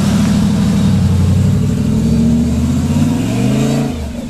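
LS1 V8 engine of a Jeep YJ rock crawler revving, its pitch climbing over the second half and then dropping off sharply near the end.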